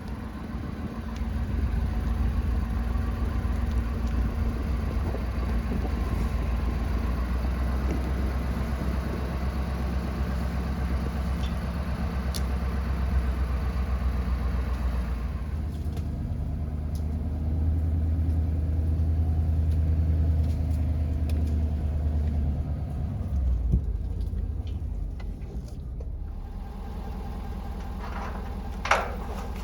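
Vehicle driving on a rough back road: steady low engine and road rumble that eases about two-thirds of the way through, with a few knocks and a brief sharp squeak near the end.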